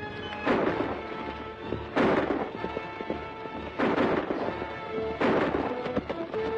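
Dramatic orchestral film score, cut through by four sharp, loud bangs spaced roughly a second and a half to two seconds apart, each with a short ringing tail.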